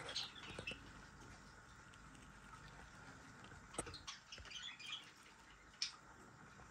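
Faint handling noise: a few soft clicks and rustles, near 4 and 6 seconds in, over quiet room tone.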